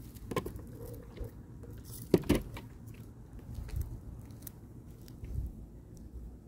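Dry leaves crunching and crackling underfoot, with scattered clicks from a handheld phone and a sharp knock about two seconds in.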